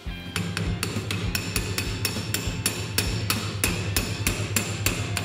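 Hammer tapping a metal sleeve down into the hub of a laminated plywood drive pulley, in quick, even blows of about four to five a second that begin shortly after the start.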